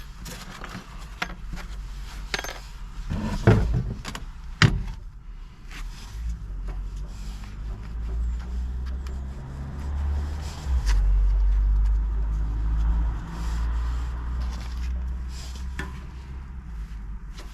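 Metal clinks, scrapes and knocks as the stove door and its loose glass-retaining clips are handled, with two sharper knocks about three and a half and four and a half seconds in. A low rumble follows from about six seconds in.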